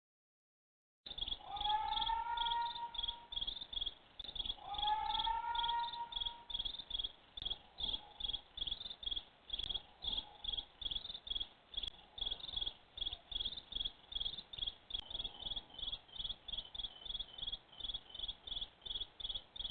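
Insects chirping steadily in a high, even pulse, about two to three chirps a second. Twice early on an animal gives a drawn-out call that rises slightly in pitch and holds, with fainter calls of the same kind later.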